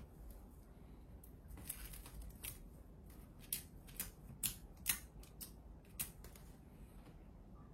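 Adhesive tape being dabbed onto and pulled off an iMac's frame to lift leftover display adhesive: faint, irregular sharp ticks and crackles, about ten of them, clustered in the middle.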